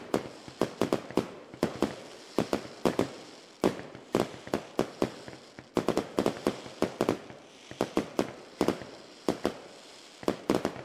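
An irregular run of sharp cracks or pops, several a second, each dying away quickly.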